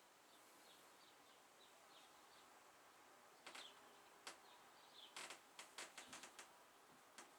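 Near silence with faint, short bird-like chirps repeating through it, and a run of sharp clicks in the second half.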